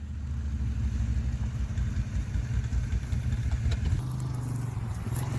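ATV engine running at low revs, a steady low drone, with a few faint clicks and a slight change in the engine note about four seconds in.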